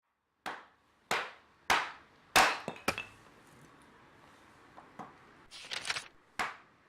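A series of sharp knocks: four strong strikes about half a second apart, then a couple of lighter knocks, a brief rustle and one more knock near the end.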